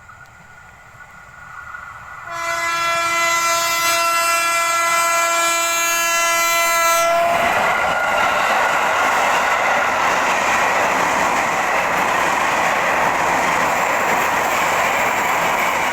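KRL electric commuter train's horn sounding one steady note for about five seconds as the train approaches. The horn cuts off as the train passes close by, with a loud steady rush of running noise from its wheels on the rails.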